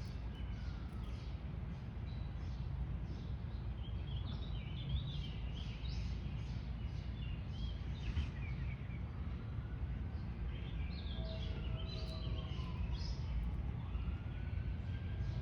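Small birds chirping over a steady low rumble of outdoor noise. A distant siren wails at the start and again from about nine seconds in, its pitch slowly rising and falling.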